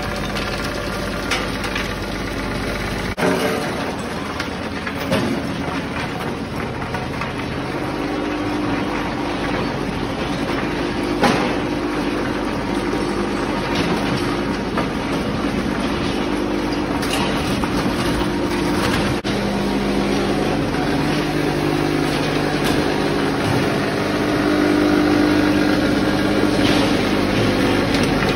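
Scrap-processing line running: a vibratory feeder and conveyor carrying broken engine pieces, with a steady mechanical hum under scattered clinks and knocks of metal fragments shaking and tumbling.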